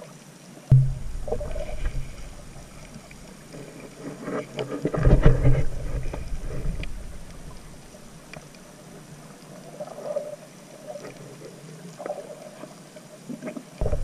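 Muffled underwater sound through a camera's waterproof housing: low surging rumbles of moving water, the loudest about halfway through, with scattered faint clicks.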